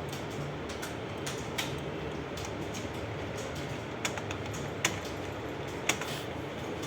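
Computer keyboard keys clicking at an uneven, unhurried pace during a typing test, over a steady low background hum.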